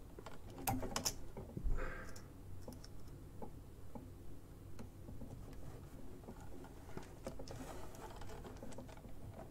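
Light clicks and taps of small plastic figure parts being handled and fitted by hand, with a few sharper clicks about a second in and a soft rustle near two seconds, over a faint steady hum.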